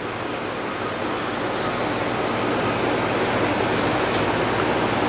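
Cruise ship under way: a steady rushing of wind and water over a low engine hum, growing gradually louder.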